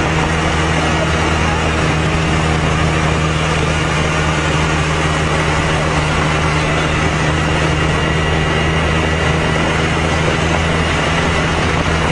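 Vehicle engines running at a steady cruising speed with road and wind rush, heard from a moving vehicle; an even low hum that does not rise or fall.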